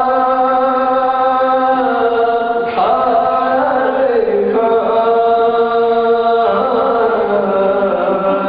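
Male voice singing a slow Urdu devotional lament (pursa, in the soz style), holding long notes and moving to a new note every two seconds or so.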